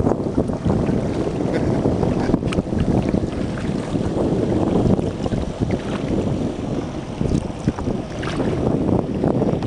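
Wind buffeting the microphone of a camera mounted on a kayak, a steady low rumble that rises and falls, with a few faint splashes of water against the kayak.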